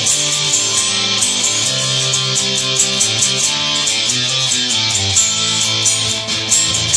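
Electric guitar strummed through an amplifier, sustained chords changing about once a second.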